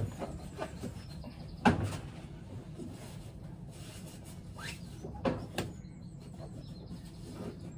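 Knocks and clunks from handling the greenhouse roller blinds and frame: a few sharp knocks, the loudest about two seconds in and a quick pair about five seconds in, over a low steady hum.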